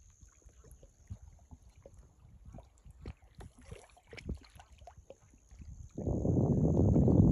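Small wind-driven waves faintly lapping and trickling at the edge of a shallow lake. About six seconds in, a gust of wind buffets the microphone with a loud low rumble.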